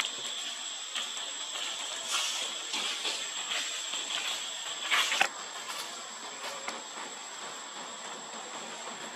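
A steady high-pitched insect drone: a constant hiss with a thin high whine over it. Brief rustles of dry leaves come and go, the loudest about five seconds in.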